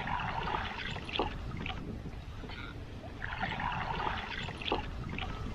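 Water splashing around a small wooden canoe in two bursts about three seconds apart, with a few small drips and splashes between.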